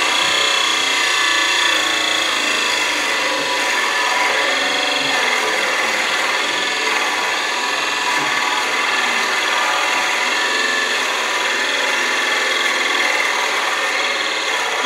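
Wood lathe spinning at about 1,400 rpm while a 1¾-inch Forstner bit, fed from the tailstock quill, bores into the wood blank. It makes a steady cutting rasp over an even motor hum.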